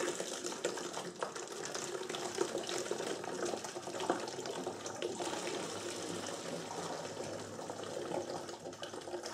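Apple juice pouring steadily from a carton through a plastic funnel into a 3-litre plastic bottle, filling it to ferment as cider.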